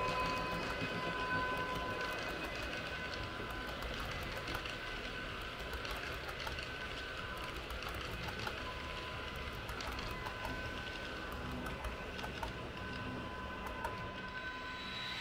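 H0 scale model train (ÖBB Railjet set) rolling along the track over a steel truss bridge: a steady running noise with scattered wheel clicks and a thin steady whine, growing a little quieter in the first couple of seconds as it passes.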